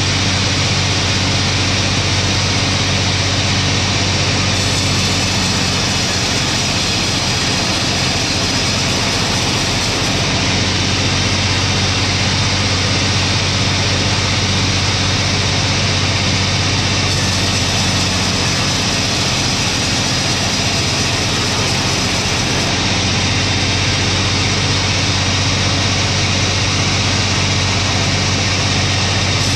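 Sawmill machinery running steadily while slabbing a log, a constant low hum under a dense, even noise with no breaks.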